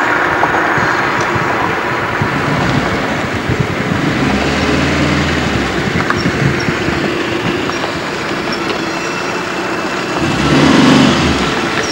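Car engine and road noise heard from inside a car driving slowly, with a low engine hum that swells louder shortly before the end.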